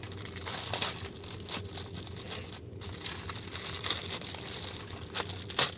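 Plastic packaging crinkling and rustling as a wallet is unwrapped by hand, in irregular crackles, with one sharp loud snap near the end.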